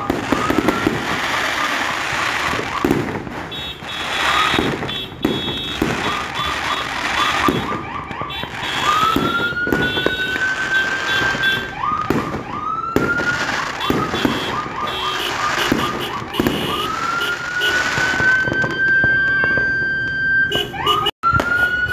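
Fireworks going off: repeated sharp bangs and crackling, with rising whistles over them, some short and repeated in quick runs and two longer ones of about three seconds each.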